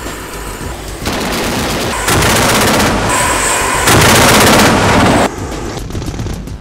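Twin 30 mm autocannons of a K30 Biho self-propelled anti-aircraft gun firing. There are two loud bursts of rapid fire, a short one about 2 seconds in and a longer one about 4 seconds in.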